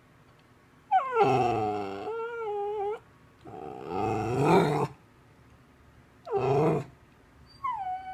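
A domestic cat yowling, four drawn-out calls with gaps between: a long wavering one about a second in, another about three and a half seconds in, a short one near six seconds, and a falling one near the end.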